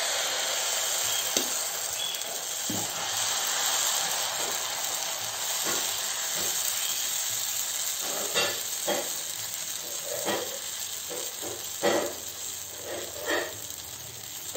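Dosa batter sizzling on a hot dosa tawa as a steel ladle spreads it in circles, with a steady hiss and, in the second half, short scrapes and taps of the ladle against the pan.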